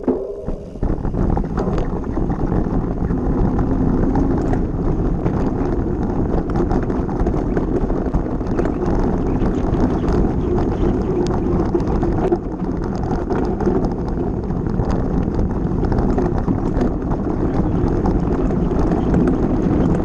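Mountain bike running fast downhill over a rocky gravel trail: a steady rumble of knobby tyres over loose stones, full of constant rattling and clicking from the bike, with wind buffeting the camera microphone.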